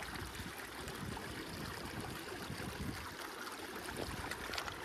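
Shallow creek running over rocks: a steady wash of flowing water.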